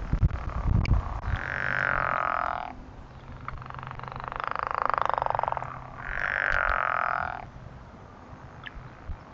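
Frogs calling with three drawn-out pulsed trills, each one to two seconds long, the middle one lower and the longest. A few low thumps come in the first second.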